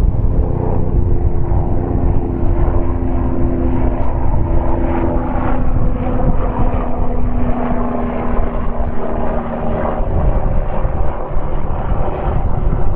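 Airbus A330-200's Rolls-Royce Trent 772B turbofans idling with the airliner standing still: a steady heavy rumble with a few held tones that fade about ten seconds in.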